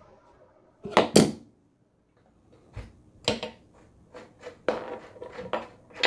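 Steel hand tools clinking against a bicycle's bottom bracket while its nut is loosened and unscrewed. Two sharp metal clinks about a second in, then a scattered run of lighter clicks and knocks.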